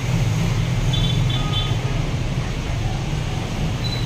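Steady low hum of street traffic, with a few faint short high chirps about a second in.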